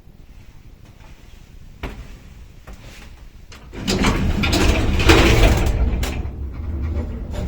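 Automatic sliding doors of a 1980 Samarkand-built passenger lift working with a loud clatter for about two seconds, starting about four seconds in. A single sharp click comes about two seconds in, and a steady low hum follows the door noise.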